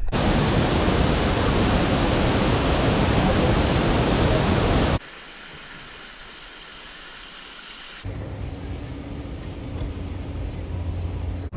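Steady roar of the Cummins Falls waterfall, which cuts off suddenly about five seconds in. Quieter, indistinct background noise with a low rumble follows.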